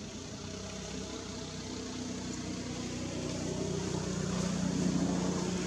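An engine running steadily, growing louder toward the end.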